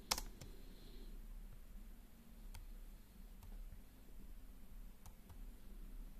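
One sharp keystroke click from the BMAX Y13 laptop's keyboard just after the start, then a few faint, scattered clicks and taps from fingers on the keys and touchscreen, over a faint low hum.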